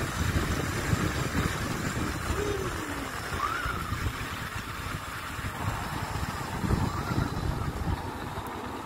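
Wind rushing over the microphone and the low rumble of a motorcycle riding along a paved road.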